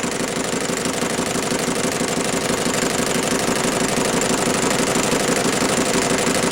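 Metal lathe running steadily while the cutting tool turns steel, throwing off chips: an even machine drone with a fast, regular chatter.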